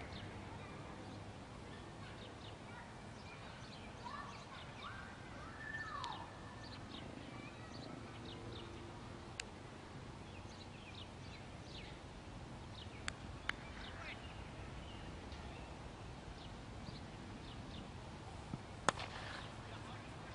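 Outdoor ambience with small birds chirping throughout and a few short calls that glide in pitch. Several sharp knocks stand out, the loudest near the end: a cricket bat striking the ball.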